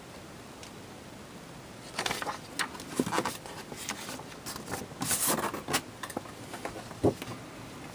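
Paper and cardboard being handled: a printed paper insert and a glossy instruction manual rustling and sliding against a cardboard model-kit box. The handling starts about two seconds in and ends with a sharp tap near the end.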